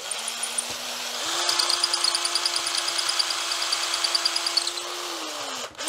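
Electric drill spinning a pen barrel trimmer that cuts the end of a soft wood slimline pen blank square to its brass tube. The motor starts at a lower speed, picks up about a second in, runs steady with the cutter shaving the wood in fast regular ticks, then winds down near the end.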